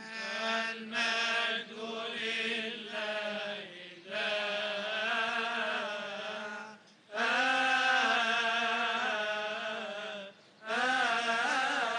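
Coptic Orthodox liturgical chant following the Gospel reading, sung in long melodic phrases with short breaths about four, seven and ten and a half seconds in.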